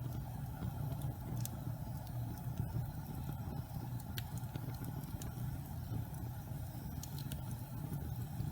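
Wood fire burning in a fireplace: scattered crackles and sharp pops over a steady low rumble.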